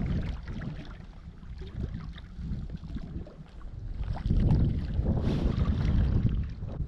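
Wind buffeting the microphone over the rush of river water. The rumble grows stronger about four seconds in.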